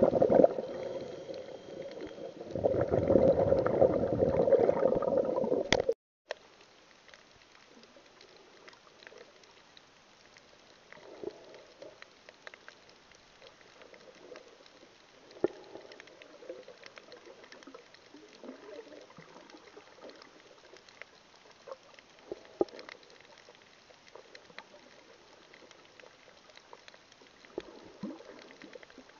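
Muffled underwater water noise, sloshing and bubbling for about the first six seconds, then cutting off suddenly. After that only faint underwater crackle with scattered small clicks.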